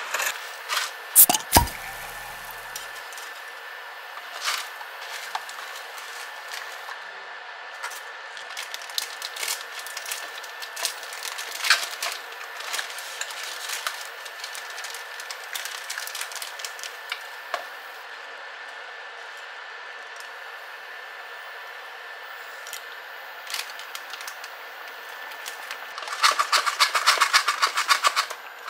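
Water boiling in a saucepan as a bundle of dry spaghetti is lowered in, with scattered light clicks and ticks of the strands against the pan. A couple of sharp knocks come about a second in, and near the end there is a dense rattling crackle lasting a couple of seconds.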